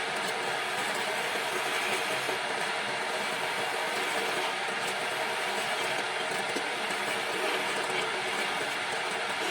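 Wood lathe running with a tool cutting the spinning wood: a steady, even rushing scrape with a faint hum, unbroken throughout.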